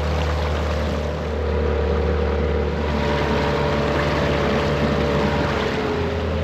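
A small boat's motor running steadily under way, a constant engine hum with water and wind noise over it; its pitch dips slightly near the end.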